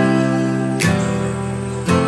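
Background music: a slow instrumental with sustained chords, a new chord struck about a second in and again near the end.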